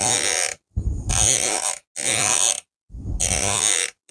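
Elevation turret of a DiscoveryOpt ED-PRS 4-20x52 rifle scope being turned by hand: rapid runs of crisp detent clicks, in four turns with short pauses between them.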